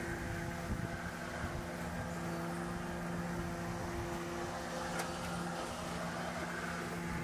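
Hart cordless electric lawn mower running: a steady motor and blade hum, with a brief click about five seconds in.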